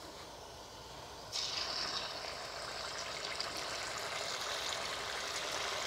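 A batter-coated cauliflower floret is dropped into hot oil in a kadhai for deep-frying. The oil starts sizzling suddenly about a second and a half in and keeps up a steady bubbling sizzle.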